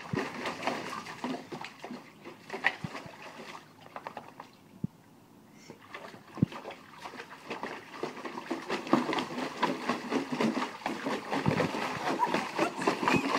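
Water splashing and sloshing in a small plastic kiddie pool as a German Shepherd paws at it and plunges its muzzle in. The splashing is irregular, drops off for a couple of seconds in the middle, then picks up again and is busier towards the end.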